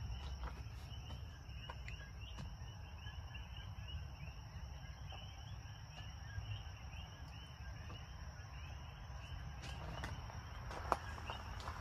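Outdoor ambience of insects chirping: a constant high-pitched whine with rapid, repeated small chirps over it. A low rumble runs underneath, and a few sharp knocks come near the end.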